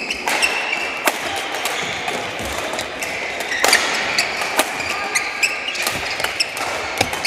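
Badminton doubles rally: rackets striking the shuttlecock back and forth in sharp hits about once a second, with sports shoes squeaking on the court floor between shots.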